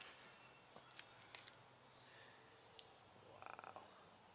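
Faint, steady, high-pitched trilling of crickets, with a few soft clicks.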